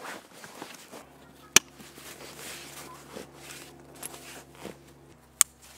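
Rustling of a heavy backpack's shoulder straps and hip-belt webbing being pulled tight, with two sharp clicks, one about a second and a half in and one near the end.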